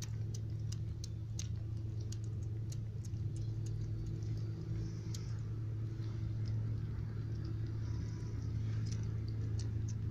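Kittens eating porridge from a tray: irregular small clicks of lapping and chewing, over a steady low hum.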